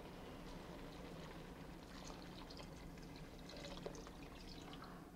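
Water poured from a glass measuring jug into a stainless steel stockpot onto diced vegetables and a beef shank: a faint, steady splashing trickle.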